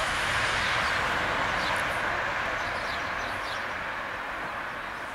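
Embraer E-190's twin GE CF34 turbofans at takeoff thrust as the jet lifts off and climbs away: a steady rushing jet noise that slowly fades as the aircraft gains height.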